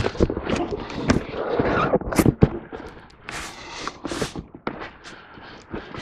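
Handling noise: an irregular string of sharp clicks and knocks with some scraping, busier in the first half and thinning out toward the end.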